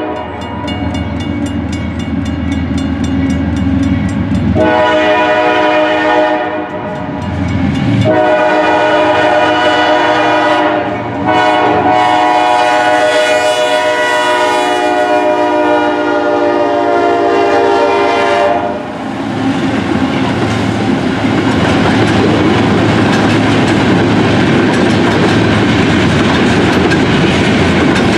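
Diesel locomotive air horn sounding long blasts for a grade crossing, the last held about seven seconds. After the horn stops, the locomotives pass and the empty coal hoppers clatter along the rails.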